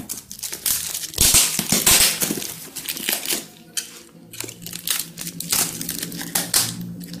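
Clear plastic parcel wrap crinkling and crackling as it is handled and slit with a utility knife, densest about a second in and again near the end.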